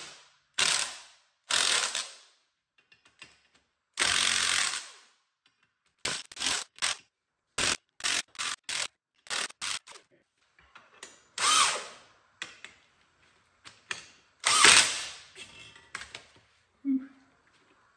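Cordless impact wrench hammering in short bursts, driving the screw of a ball joint press to push the old ball joint out of a rear lower suspension wishbone. There are a few longer bursts of up to about a second, then a run of quick blips, then more bursts.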